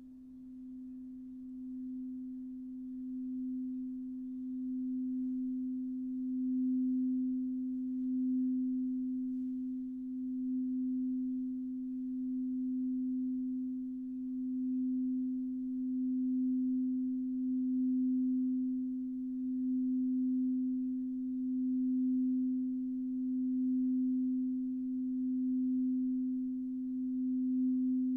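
Crystal singing bowl sounding one pure, sustained tone. It swells over the first several seconds, then holds steady with a gentle pulsing about every two seconds.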